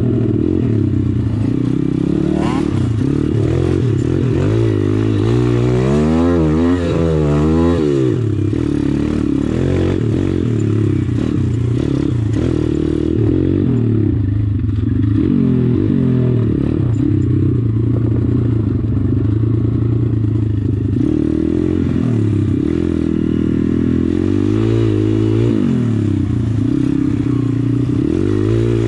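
The 140cc YX single-cylinder four-stroke engine of a pit bike being ridden off-road, its revs rising and falling continually, with a burst of quick up-and-down revs about six seconds in.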